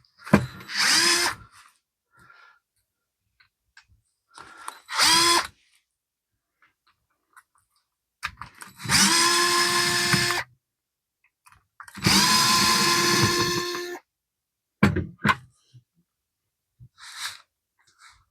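Powered screwdriver running in bursts to back out rusty screws. The first two bursts are short and rise in pitch as it spins up; then come two longer steady runs of about two seconds each, and a few short blips near the end.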